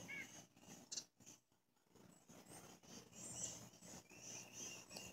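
Faint chorus of insects, crickets or katydids, chirping in repeated high pulses, with light rustling and a click from the phone being handled.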